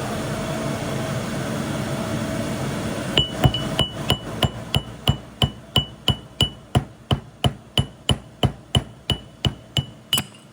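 Hammer tapping steadily on metal, about three light blows a second with a short ring at each, driving the seized bearing out of a Milwaukee M18 orbital sander's pad assembly. The tapping starts about three seconds in, after steady background noise.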